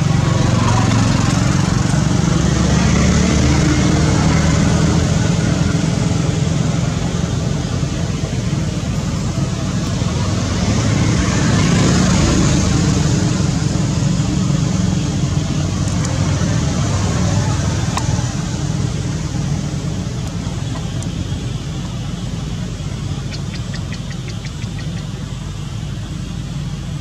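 A motor vehicle engine running, a steady low rumble with a noisy haze over it that eases off a little toward the end.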